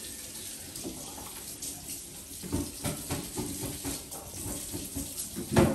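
Kitchen tap running steadily into a sink as something is rinsed under it, with a few knocks around the middle and one loud thump near the end.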